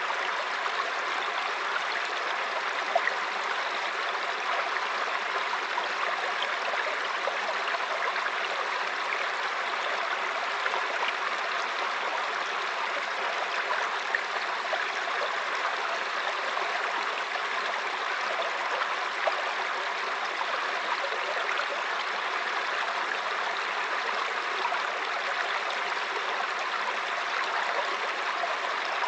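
Mountain stream flowing and babbling steadily over rocks, with small splashes here and there.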